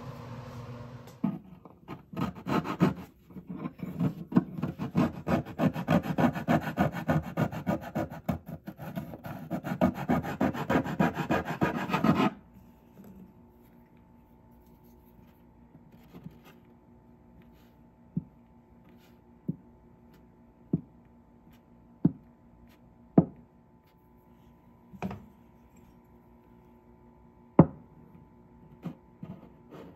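Hand sanding of a 1947 Martin guitar's neck with a sanding block: rapid back-and-forth rasping strokes with a short pause, stopping abruptly about twelve seconds in. After that, a faint steady hum with about eight single sharp taps, a second or two apart.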